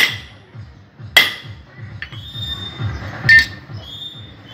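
Steel hammer blows on the shaft of a crankshaft-splitting jig, knocking the motorcycle crankshaft apart to change the connecting rod. Three sharp, ringing metal-on-metal clanks, at the start, about a second in and about three seconds in, with a lighter click between them.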